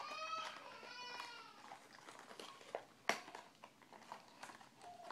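A cat meowing twice, two short calls that rise and fall in pitch within the first second and a half, then a single sharp click about three seconds in.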